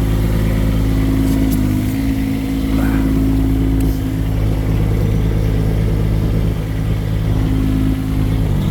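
Three-cylinder Kubota diesel engine of an IRE20 mini excavator running steadily, its note dropping slightly near the end.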